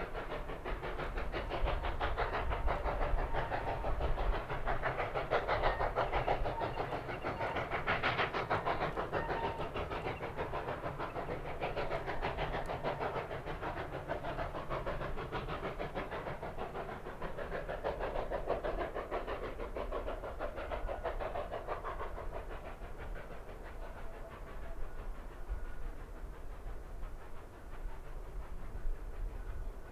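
Rio Grande K-36 narrow-gauge steam locomotive working a passenger train, its exhaust beating in a fast, even chuff. The sound swells about a quarter of the way in and fades near the end as the train moves away.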